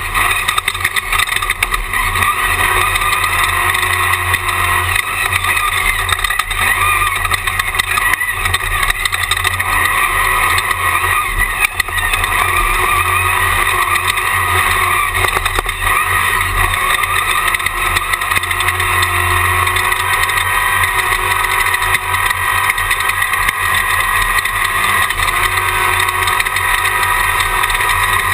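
Class 1 Jimco off-road race buggy running at speed, heard from inside the car: a loud, steady engine and wind din with scattered short knocks from the rough course.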